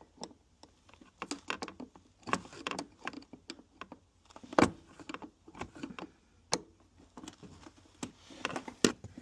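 Scattered clicks and knocks of hard plastic parts being handled, with soft rustling, as the rubber sleeve of a fuel door release cable is pushed into the clamp on a plastic fuel door lever. The loudest knock comes about halfway through.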